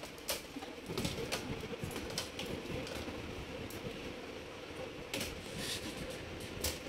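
Scattered small clicks and knocks of the disassembled ThinkPad T420's plastic and metal chassis parts being handled, over a low continuous background sound.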